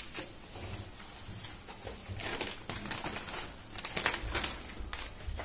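Sheets of newspaper rustling and crinkling as they are handled and spread out flat, in several uneven rustles.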